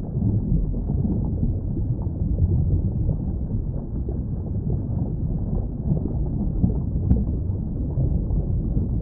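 Underwater ambience: a steady, muffled low rumble with a constantly churning texture, with nothing heard above the low and middle range.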